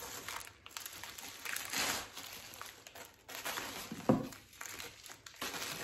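Clear plastic wrapping crinkling and rustling in irregular bursts as it is pulled off a packaged blade by hand, with a short knock about four seconds in.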